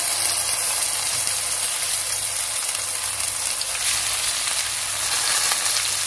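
Whole paste-coated fish and curry leaves frying in hot coconut oil in a frying pan, a steady sizzle.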